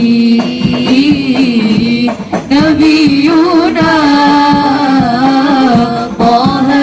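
A woman singing a sholawat, an Arabic devotional song, in a long ornamented vocal line that bends up and down in pitch, over steady drum accompaniment.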